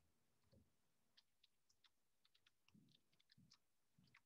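Near silence, with faint scattered clicks and a few soft low thuds.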